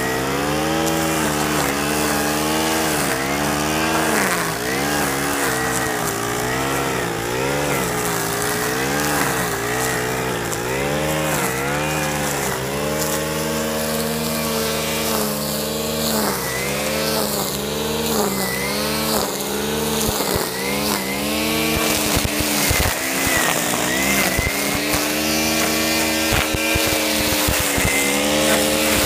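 Stihl FS 90 R string trimmer's small 4-MIX engine running while cutting grass, its speed rising and falling over and over.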